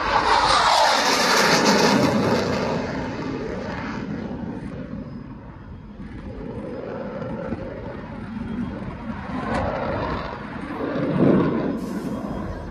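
Military jet flying low past: a loud roar whose pitch falls as it goes by, easing to a lower rumble, which swells again near the end.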